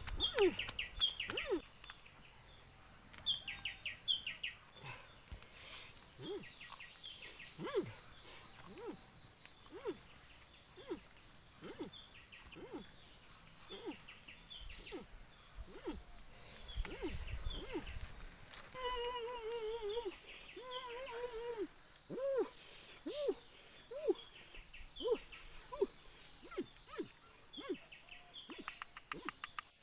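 Outdoor forest sounds: a steady high insect drone of crickets or cicadas, with many short chirping calls scattered throughout and a longer wavering call about two-thirds of the way through.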